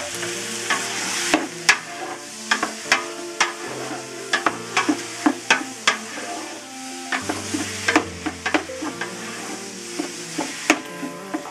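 Cubed lamb sizzling in a large aluminium pot as it starts to sear in butter with onion, celery and garlic. A wooden spoon stirs it, knocking and scraping against the pot many times.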